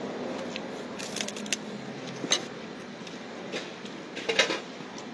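Eating a crispy fried cracker close to the microphone: a handful of sharp crunches as it is bitten and chewed, the loudest cluster near the end, over a steady hum of street traffic.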